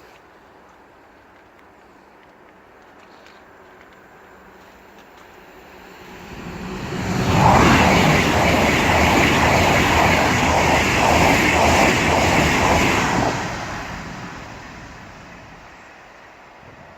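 LNER Azuma passenger train passing at speed: its sound builds as it approaches, stays loud for about six seconds with a rapid, regular clatter of wheels on the rails, then fades away.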